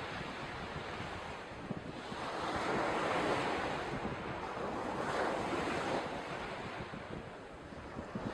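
Surf washing up on a sandy beach: the noise of the water swells to a peak about three seconds in, surges again briefly about five seconds in, then eases off near the end.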